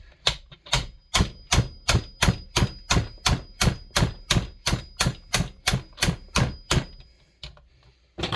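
A hatchet used as a hammer striking metal on a Pioneer NU-17 chainsaw's piston, about twenty steady blows at roughly three a second with a faint metallic ring, stopping about seven seconds in. The blows are knocking the piston off the connecting rod.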